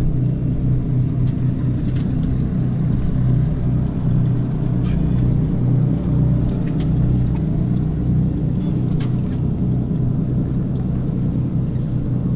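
Boat's twin outboard motors idling, a steady low hum with a few faint clicks scattered through it.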